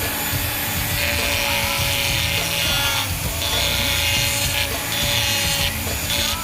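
Power grinder with an 80-grit sanding disc running steadily and grinding fiberglass and gel coat, its abrasive rasp coming and going in spells from about a second in as the tool is wobbled over the surface. This is the damaged nonskid being ground out and its edges tapered to take a fresh repair.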